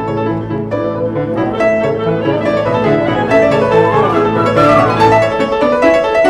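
Instrumental background music led by piano, over a held low note that drops out near the end.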